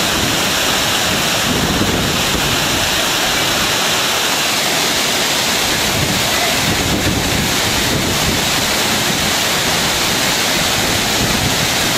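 Sanje Falls waterfall, a loud, steady rush of falling water close by.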